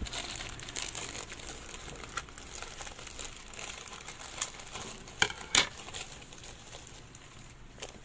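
Crinkling and rustling of a plastic shipping pouch and its paper label being cut open with scissors and handled, with two sharper, louder crackles a little past halfway.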